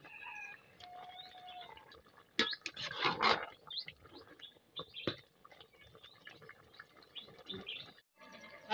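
Metal ladle stirring a simmering leaf sauce in an aluminium pot, with scattered clinks against the pot and a louder scrape about three seconds in. Short bird chirps sound faintly behind.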